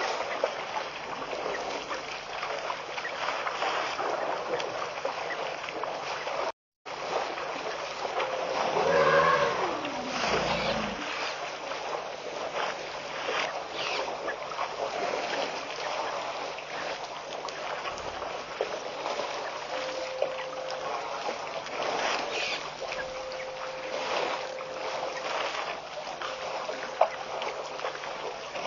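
Steady hiss of waterhole ambience as a herd of African elephants drinks and splashes at the water's edge. About nine seconds in, one elephant call falls in pitch over a second or two. The sound cuts out for a moment about seven seconds in.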